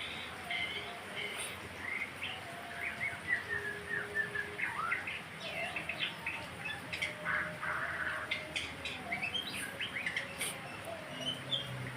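A murai songbird singing a rapid, varied run of chirps, short whistled slides and trills, with a brief harsher phrase about seven seconds in.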